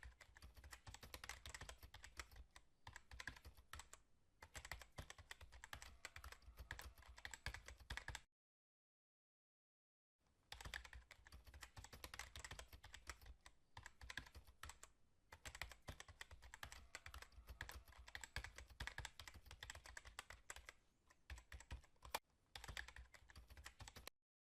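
Rapid, continuous keyboard typing: a dense run of clicks that stops dead for about two seconds some eight seconds in, then resumes, with one sharper click near the end.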